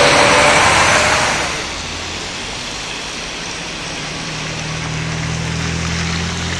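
A semi-trailer truck passing close on wet asphalt, tyre spray and engine loud, ending abruptly about a second and a half in. Then a steadier, quieter rush of wet-road and water noise, with a low engine hum building up from the middle on.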